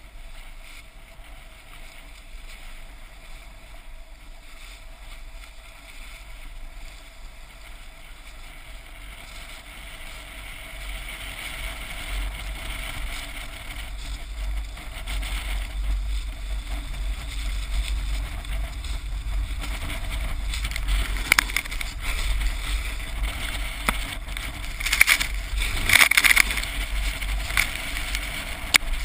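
Snowboard sliding over groomed snow, heard through a GoPro on a pole mount: a steady hiss of the board on the snow with wind rumbling on the microphone. It grows louder from about ten seconds in, and a few brief scrapes come in the last third.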